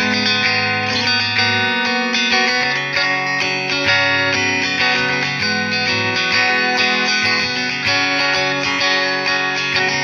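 Electric guitar, a Fender Modern Player with a capo, played through a Line 6 POD HD500X modeller: chords picked and strummed in a steady rhythm, the notes ringing on between strokes.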